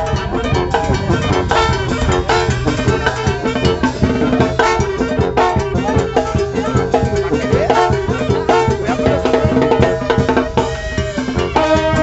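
Banda sinaloense playing a cumbia: a steady drum beat with brass and held melody notes over it.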